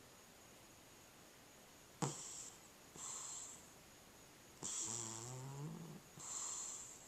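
Cat snoring in its sleep: two breaths about two seconds in, each a low rattling snore followed by a softer breathy hiss. The second snore is longer and rises in pitch.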